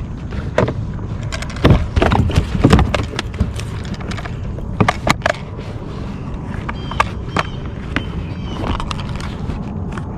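Clattering knocks and thumps of handling a landed fish and gear on a plastic fishing kayak, thickest about two seconds in and again around five seconds, over a steady low rumble of wind or water. Repeated short chirps sound in the second half.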